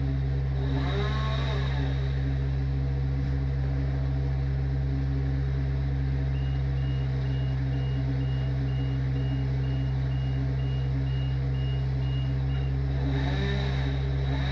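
Steady low mechanical hum, like an engine running. Through the middle stretch a short, high electronic beep repeats about twice a second, for roughly six seconds.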